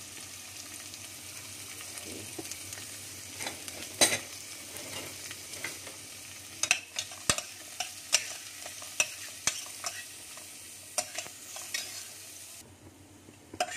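Chopped onion and browned garlic sizzling in oil in a stainless steel pot, with a metal spoon clinking and scraping against the pot as they are stirred. The sizzle drops away near the end.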